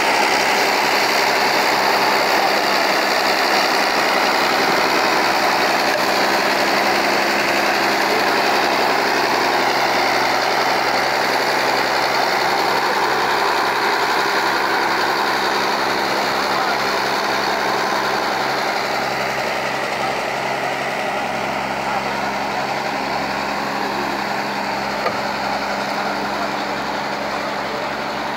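Large four-wheel-drive tractor's diesel engine running steadily under load as it tows a fishing boat across sand by a chain.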